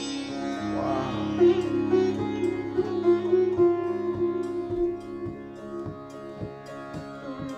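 Sitar played solo: plucked melody notes on the main string over the steady ringing of the drone and sympathetic strings, which are tuned to a Khamaj (major) scale and vibrate with the matching notes. A bent, gliding note about a second in is followed by a run of plucks that grows quieter in the second half.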